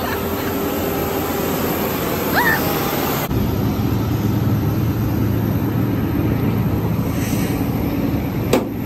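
Steady rush and low hum of jet airliners and ramp equipment on an airport apron, with an abrupt change about three seconds in and a single sharp knock near the end.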